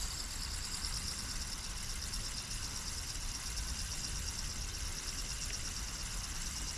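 Steady high-pitched chirring of insects, pulsing evenly, over a low rumble.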